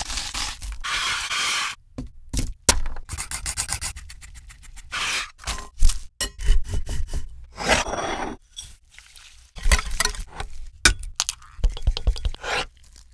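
Close-miked food-prep sounds in quick succession: a chef's knife chopping onion on a wooden cutting board, ingredients dropping into a glass bowl of ground beef, and near the end egg beaten with a utensil in a glass bowl, with rapid, evenly spaced clicks.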